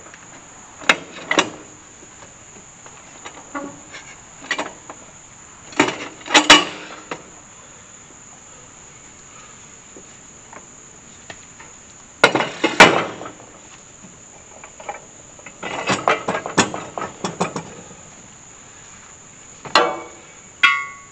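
Manual tire changer worked by hand on a stubborn tire and steel wheel: scattered metal clanks and knocks of the steel bar, spindle and wheel, the loudest strikes about six and thirteen seconds in, with another cluster near the end. Crickets chirp steadily underneath.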